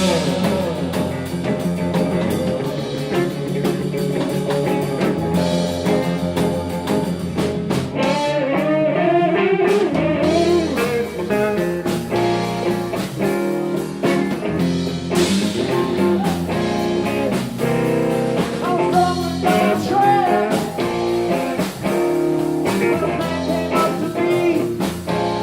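Blues-rock music with electric guitar, a lead line bending notes, and what may be a singing voice.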